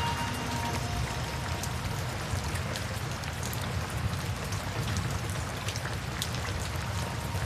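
Steady rain: an even hiss with individual drops ticking sharply now and then.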